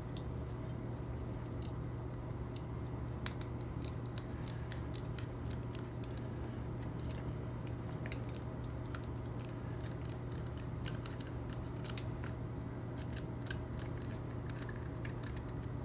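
Faint, scattered clicks and ticks of a Phillips screwdriver backing out a small screw, over a steady low hum.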